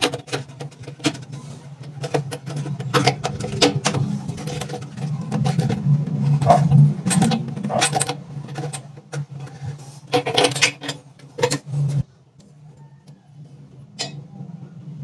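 Red plastic faucet-installer wrench clicking and scraping as it turns the faucet's mounting nut under the basin: irregular knocks and rasps over a steady low hum. About twelve seconds in the sound cuts off and only a few faint clicks follow.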